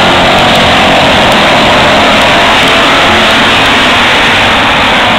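A pack of stock cars racing past on an oval track, their engines loud and steady.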